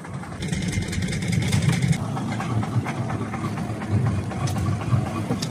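Small fishing boat's engine running steadily with a low hum. A rushing hiss joins it from about half a second to two seconds in.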